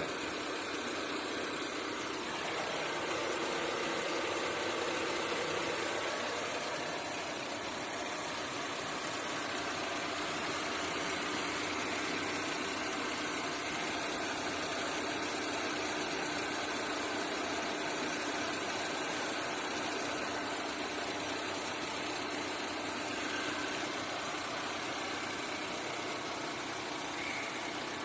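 Car engine idling steadily, with a constant high hiss over it.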